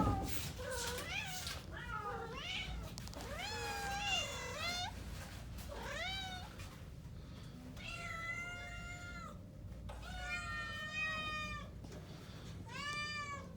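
Domestic cats meowing: a series of long, drawn-out meows, several of them more than a second long, repeated every second or two.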